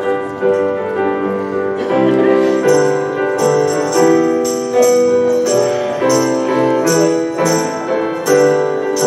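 Instrumental worship music starting up: sustained keyboard chords, with jingling percussion joining in a steady beat about two seconds in.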